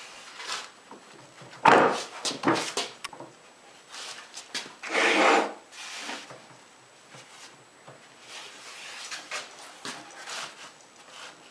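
Glued maple edge-banding strip being fitted onto biscuits along a melamine tabletop: a few wooden knocks and rubbing, loudest about two seconds in, with a short scraping rush around five seconds in.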